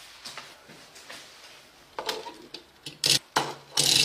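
A run of light clicks and taps, then three loud short knocks in the last second.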